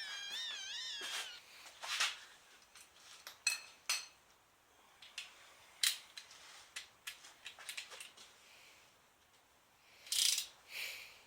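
A short, high, wavering squeal right at the start, then scattered sharp metallic clicks and clinks of hand tools and sockets being handled, with a brief rustle about ten seconds in.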